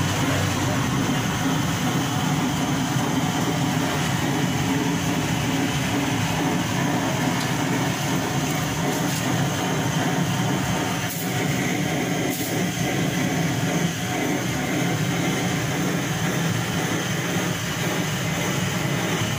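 Hand-held gas blowtorch running with a steady rushing noise as it singes the hair off a goat carcass.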